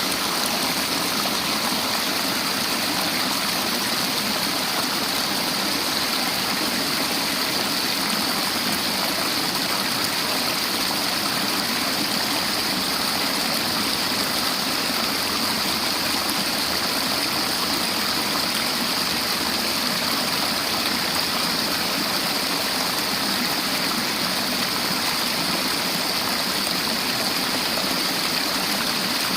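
River water flowing and rushing over rocks in a steady, unbroken hiss.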